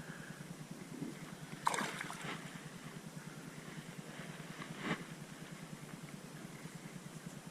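Two brief splashes in shallow creek water, the louder about two seconds in and a shorter one near five seconds, over a steady low hum.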